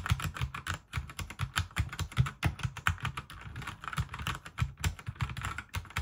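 Typing on a Redragon K628 Pollux 75% mechanical keyboard fitted with red linear switches: a rapid, continuous stream of keystrokes.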